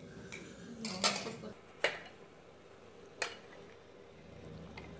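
Tableware clinking: spoons and chopsticks knocking against ceramic bowls in three sharp clinks, spread over a couple of seconds.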